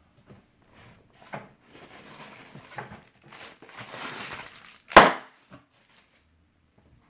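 Packaging being handled: rustling with a few light knocks, then one loud sharp bang about five seconds in.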